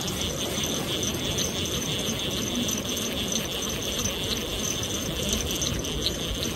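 Small baitcasting-style fishing reel cranked fast to wind in line: a steady gear whir with fine rapid clicking.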